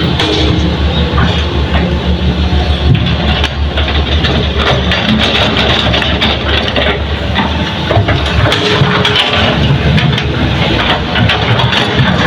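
Heavy diesel earthmoving machinery running steadily, with a low engine drone and scattered short knocks.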